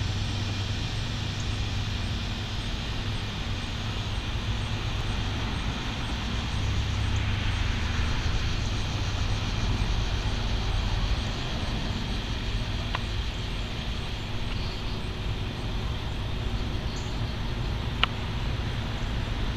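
Steady low rumble and hiss of background noise, with a faint tick partway through and a sharp click near the end.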